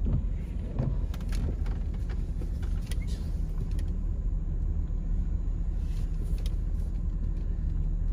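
Car driving slowly, heard from inside the cabin: a steady low rumble of engine and tyres, with a few faint clicks and knocks.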